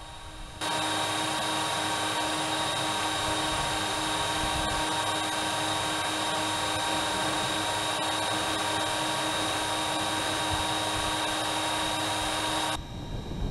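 Electric motors of a LEGO Technic boat running steadily under way, a motor whine with several steady tones over a hiss of water and wind, heard close up from the boat's deck. It starts suddenly about half a second in and cuts off shortly before the end, where a fainter, airier sound takes over.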